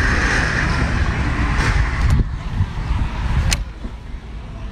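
A low engine rumble from a nearby vehicle, which eases a little after about two seconds. Two sharp clicks come about two and three and a half seconds in as a Honda sportbike's ignition is switched on.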